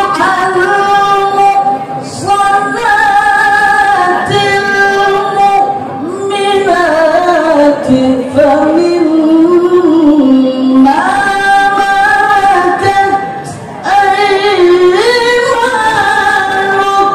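A man's voice reciting the Qur'an in the melodic tilawah style through a microphone and PA: long held high notes with ornamented glides and wavers. About seven seconds in, the melody sinks lower before climbing back, with short breath pauses between phrases.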